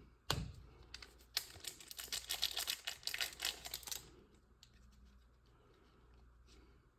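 A trading card pack's wrapper being torn open and crinkled: a sharp snap, then a couple of seconds of dense crackling, then only a few faint handling clicks.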